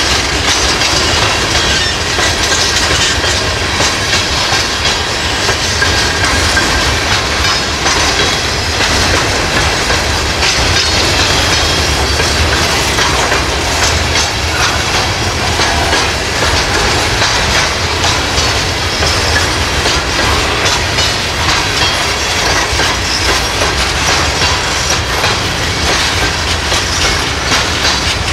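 Covered hopper cars of a freight train rolling steadily past, a loud continuous rumble of steel wheels on rail with a rapid run of clacks as the wheels cross rail joints.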